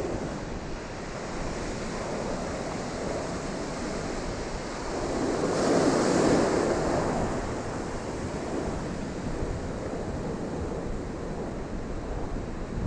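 Ocean surf washing in close, with one breaking wave surging loudest about six seconds in, and wind rumbling on the microphone.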